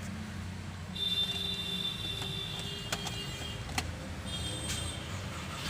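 Skoda Laura TSI petrol engine running at idle with a steady low rumble, joined about a second in by a thin high-pitched electric whine that stops and briefly returns, and two sharp clicks in the middle. The car has a fault that makes the engine cut out when accelerated, traced to its fuel pump control module.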